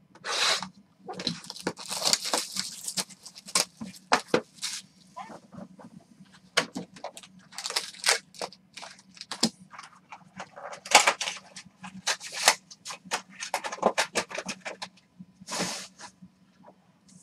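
Plastic wrapping and packaging of a sealed box of football trading cards being torn open and crumpled by hand: a string of crackling, tearing rustles in bursts with short pauses.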